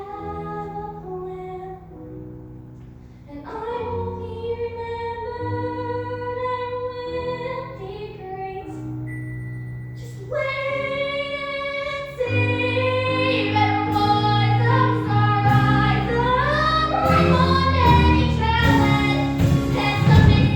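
A 13-year-old girl singing a musical-theatre song with long held notes over sustained low instrumental accompaniment. Her voice grows louder and fuller in the second half.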